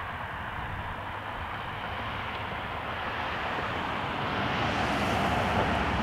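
Jet engines of a taxiing Airbus A320-family airliner running with a steady rushing whine. The sound grows gradually louder, and a hiss builds in the high range about four seconds in as the jet comes closer.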